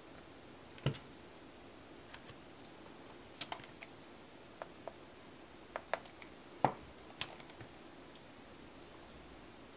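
Scattered sharp clicks and light taps of long nail extensions and a plastic nail-art stamper being handled, with a couple of duller knocks about a second in and near 7 seconds. The clicks come irregularly, like sparse typing.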